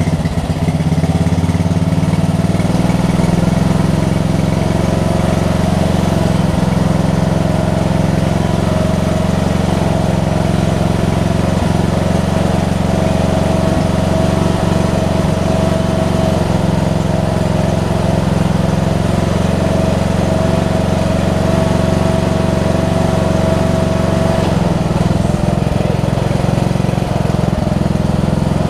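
The 15.5 hp Briggs & Stratton engine of a riding lawn tractor, running steadily on its newly fitted carburetor.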